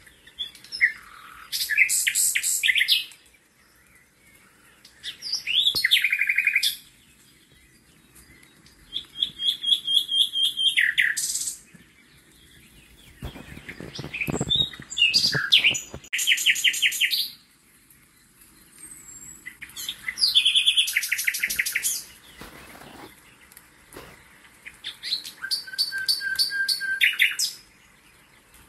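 A songbird singing: a string of varied phrases of rapid trills and clear whistles, each lasting one to three seconds, repeated about every four to five seconds.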